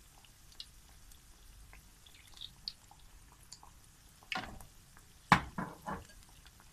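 Gram-flour-battered pakoras deep-frying in hot oil, with a faint sizzle and scattered crackles. A few louder sudden noises come in the second half, the loudest about five seconds in.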